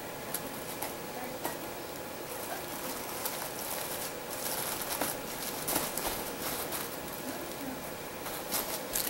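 Hands patting and pressing crumbly cake pieces into a plastic-lined baking pan: soft scattered pats and light crinkles of the plastic film over a steady faint hiss, with more crackles near the end.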